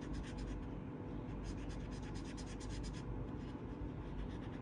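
Felt-tip marker scratching on paper in quick back-and-forth colouring strokes, about nine a second, in two runs with a short pause between, stopping about three seconds in. A steady low hum runs underneath.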